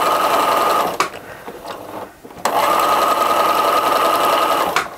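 Pfaff sewing machine stitching a seam at a steady speed. It stops about a second in, then runs again for about two seconds before stopping near the end.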